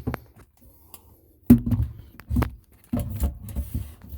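Handling noise: irregular sharp knocks and clicks with light rattling, spaced by short quiet gaps and busier near the end.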